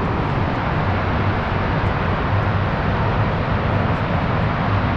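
Steady rushing wind buffeting the microphone, with a constant low rumble.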